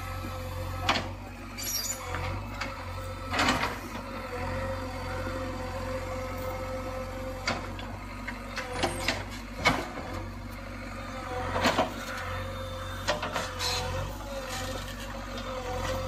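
49 hp JCB diesel engine of a JCB 3DX Xpert backhoe loader running steadily while the backhoe digs, with a steady whine over the engine hum. Sharp clanks and knocks from the backhoe arm and bucket come at irregular intervals, about a dozen times.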